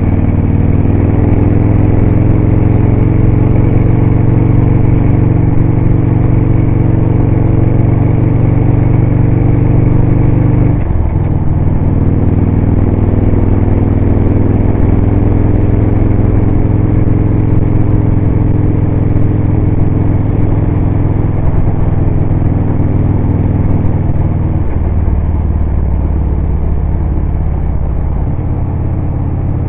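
Victory motorcycle's V-twin engine running under way, with wind and road noise. Its pitch climbs slowly as the bike accelerates, then drops suddenly about 11 seconds in and again near 25 seconds as it shifts up a gear.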